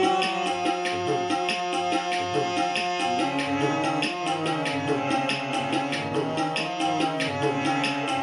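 Instrumental music: a held, wavering melody line over a steady tabla-style drum rhythm, with the melody changing about three seconds in.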